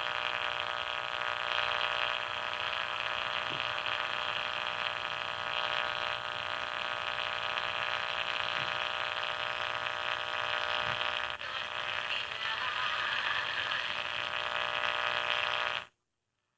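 Small speaker of an Elenco AM-780K AM radio kit hissing with static and steady whining interference tones while tuned to a weak station. The builder traces the static to the desk lamp. The noise cuts off suddenly near the end.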